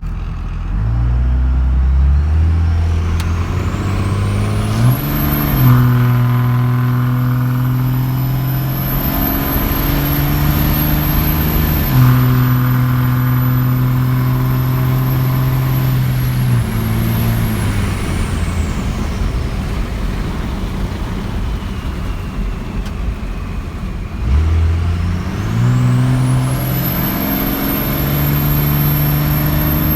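24-valve Cummins diesel with a 4-inch straight-pipe exhaust pulling hard at full throttle, heard from inside the cab with the windows down. Its note changes pitch in steps as it climbs through the gears. A high whistle from the HX35 turbo, its silencer ring removed, rises and holds, then falls away as the throttle is eased. The engine builds again into a second pull near the end.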